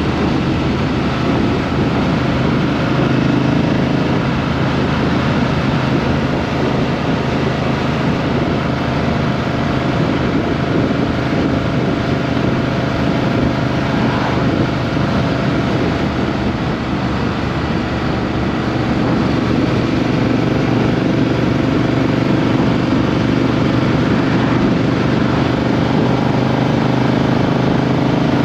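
Triumph Street Twin's 900 cc parallel-twin engine running while the motorcycle is ridden, picked up by a microphone under the seat. The engine note holds fairly steady with small rises and falls in pitch, over a constant rush of road and wind noise.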